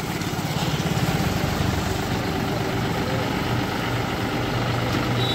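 John Deere tractor's diesel engine running at low revs, with a fast, even firing pulse, as the tractor is driven down the ramp off a truck deck. The engine has no silencer fitted.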